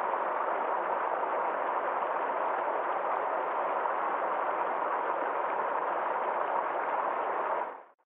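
Fast mountain stream rushing over rocks in small cascades: a steady rush of water that fades out just before the end.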